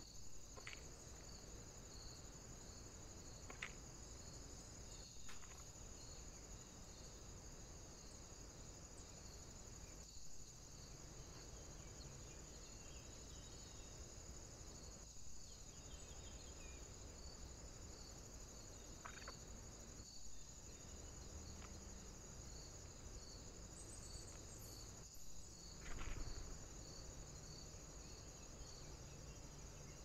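Faint, steady, high-pitched insect chirring with a regular pulsing chirp, typical of crickets in summer woodland. A few brief sharp sounds stand out, the loudest a low bump near the end.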